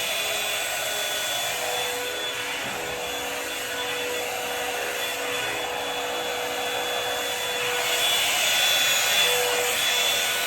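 Handheld hair dryer blowing steadily, a continuous rush of air with a faint whine from its motor. It grows a little louder about eight seconds in.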